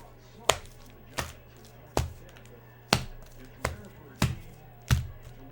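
Trading cards or card packs being set down on a table: about seven sharp taps, roughly one every 0.7 s.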